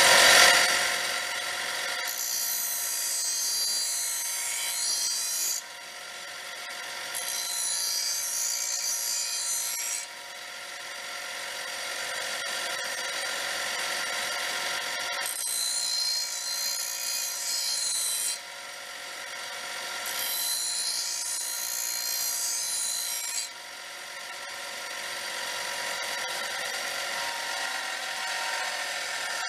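A lawn mower blade being sharpened on a power grinder: the motor runs steadily with an even hum, and the blade is pressed to it in four grinding passes of about three seconds each that add a harsh, high scraping hiss.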